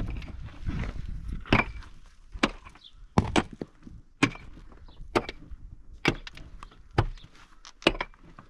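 A hand tool chopping into a packed earth and rock cave wall: repeated sharp strikes, about one a second, some with a crumbling scrape after them.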